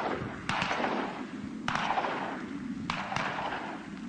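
Four shotgun shots fired at flying ducks, spaced about a second apart with the last two close together, each trailing off in a long echo.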